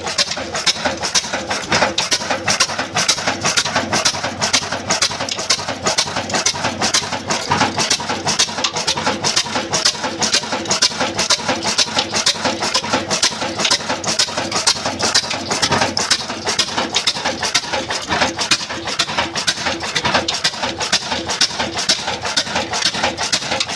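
Large horizontal single-cylinder diesel engine with a heavy flywheel, a Ruston-style engine built by Modern Industries of Daska, running steadily with a quick, even beat.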